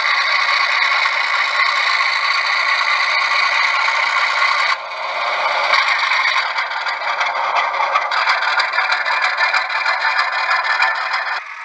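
Model train rolling along the layout's track, its wheels and trucks rattling and scraping over the rails in a steady clatter. The level drops suddenly about five seconds in.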